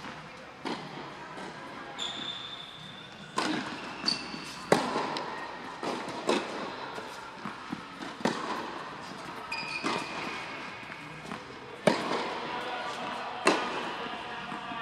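Tennis rally on an indoor court: sharp racket strikes and ball bounces, roughly one every second or two, each echoing briefly around the hall, with a few short high squeaks.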